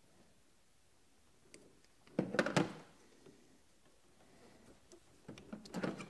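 Handling sounds of rubber vacuum hoses being pushed onto a canister purge solenoid and spring hose clamps worked with needle-nose pliers: a short cluster of clicks and knocks about two seconds in, and a few more near the end.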